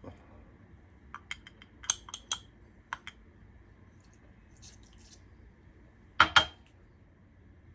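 Metal measuring spoons clinking and tapping against a bowl while salt is measured out: a run of light clinks, then two louder clinks close together near the end.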